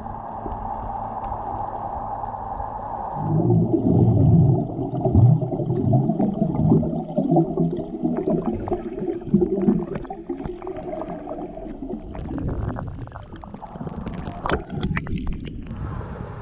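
Underwater sound picked up by a camera in its waterproof housing: a steady hum for the first three seconds, then louder muffled rushing and bubbling of water with scattered clicks and crackles.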